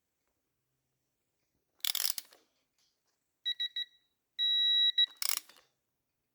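Digital torque wrench beeping a few quick beeps and then one long steady beep, signalling that the triple clamp bolt has reached its set torque of 17 newton metres. A short clatter of the tool comes about two seconds in, and another just after the long beep.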